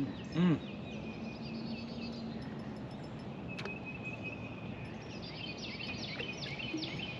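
Outdoor ambience with a bird singing a series of quick downward-slurred high notes, in the first second and again over the last two seconds. A short vocal 'hm' sound about half a second in is the loudest thing.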